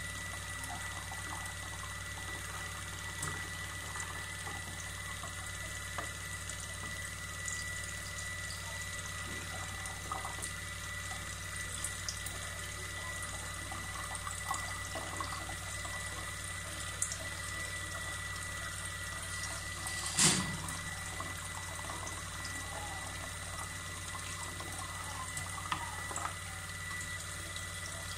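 Purified water from a reverse osmosis purifier running into a large plastic bottle as it fills, with small drips and trickles over a steady high tone. A single sharp knock sounds about twenty seconds in.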